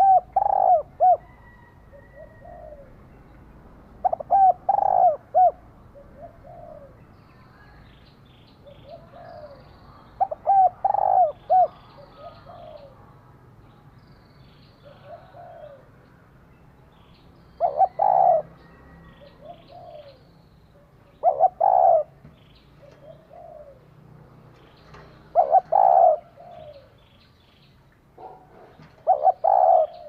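Female spotted dove cooing: seven loud phrases, each a quick run of several coos, spaced a few seconds apart, with softer single coos in between. Faint high chirps sound above it.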